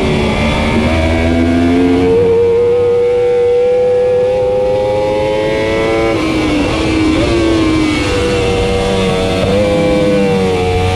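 2015 Yamaha R1's crossplane inline-four engine at racing speed, heard from on the bike. It holds high revs for a few seconds, then drops in pitch about six seconds in and again near the end as the rider brakes and downshifts from fourth to second gear for a corner.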